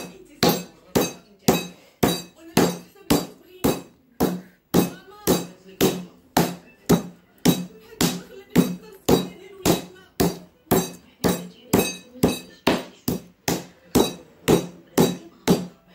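Boned turkey thigh being pounded with a wooden rolling pin on a wooden cutting board: firm, even blows at about two a second. The meat is being beaten flat, like a fillet, so that it cooks through.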